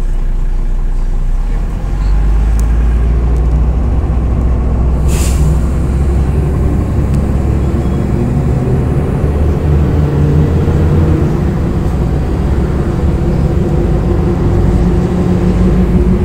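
Cabin sound of a MAZ 105.465 city bus pulling away: its diesel engine running, getting louder about two seconds in as the bus sets off, with a short hiss of air about five seconds in. The engine note then rises slowly as the bus gathers speed.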